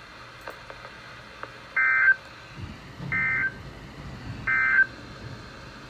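Emergency Alert System end-of-message signal: three short, identical bursts of buzzy SAME data tones, about a second apart, marking the close of the flood warning broadcast.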